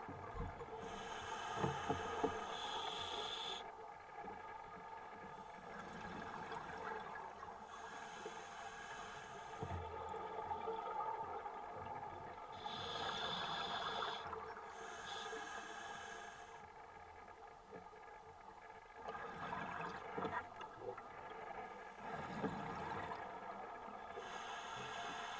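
Scuba diver breathing through a regulator underwater: bursts of hissing and bubbling every few seconds over a steady underwater murmur.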